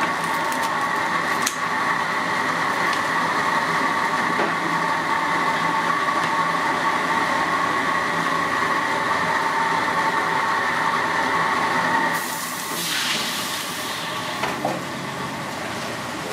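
Steady machine hum with a high, even whine, which cuts out about twelve seconds in and gives way to a brief hiss.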